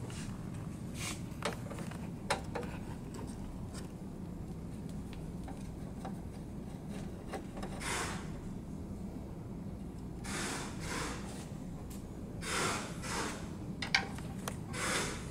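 A screwdriver backing screws out of a DTG printer's sheet-metal capping-station bracket: a few small metallic clicks, then several short scraping rasps in the second half, over a steady low hum.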